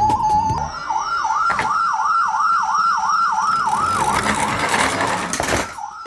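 Electronic siren of a toy emergency vehicle: a short steady tone, then a fast yelp that rises over and over about three times a second, stopping shortly before the end.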